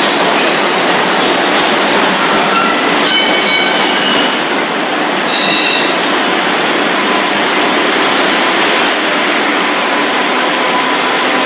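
MBTA subway train running on the rails with a loud, steady rumble. Short high-pitched wheel squeals cut in several times during the first half.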